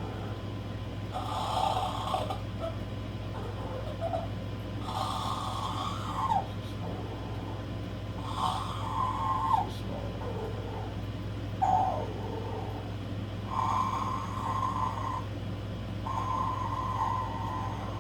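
Parrot imitating human snoring, a pitched snore-like rasp repeated every three to four seconds, some ending in a falling glide.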